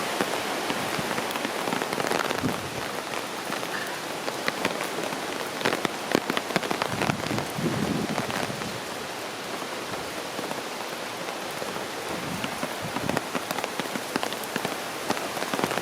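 Heavy hurricane rain pelting down, a dense hiss full of sharp drop impacts, swelling a little about halfway through.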